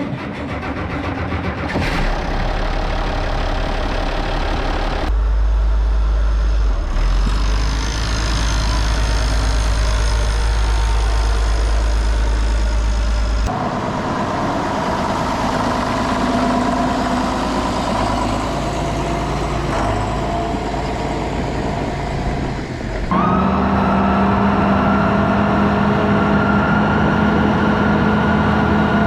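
Farm tractor diesel engines running, in several clips that change abruptly a few seconds in, about halfway and near the three-quarter mark. The last clip has a steady engine drone with a high whine.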